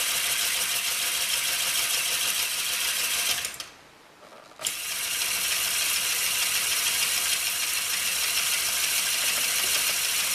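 Lego Technic pin coupling turning under a Lego electric motor: a steady whir with plastic parts clattering. The sound dies away at about three and a half seconds, stays quiet for about a second, then starts again sharply and runs on steadily.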